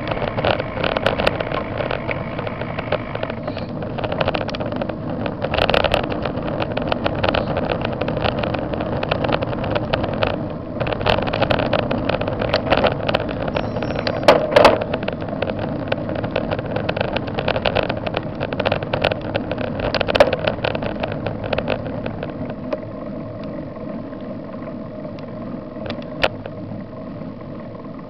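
Riding sound from a vehicle-mounted camera: an engine running under way with heavy rushing wind noise on the microphone. It becomes quieter for the last few seconds as the ride slows.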